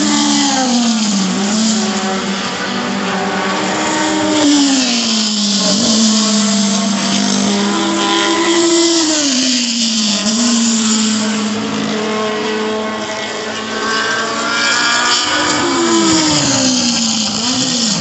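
Formula 2 racing cars' engines at high revs as several cars go by in succession, the engine notes overlapping and repeatedly falling then rising again as they pass and change gear.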